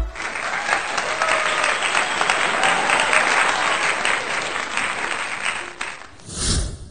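Applause, a steady clatter of many hands clapping that fades out towards the end, followed by a short swell of noise about six and a half seconds in.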